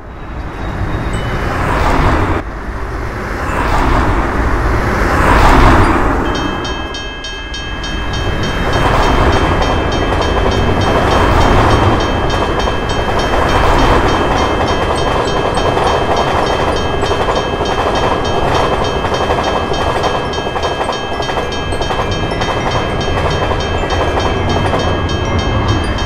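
Road vehicles pass in the first few seconds. Then, about six seconds in, a passenger train starts running past a level crossing with a continuous rumble, while a steady ringing of the crossing's warning bell sounds above it.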